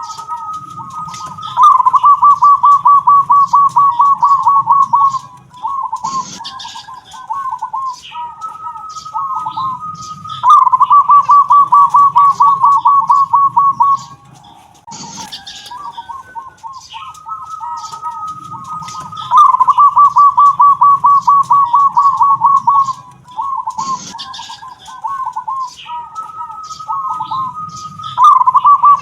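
Local zebra dove (perkutut) with the prized 'kung' voice singing its cooing song over and over: each phrase opens with a held note, breaks into a fast, loud rattling run of coos lasting about three seconds, then trails off in a few softer separate notes. The phrase comes roughly every eight to nine seconds, three full times with a fourth starting near the end.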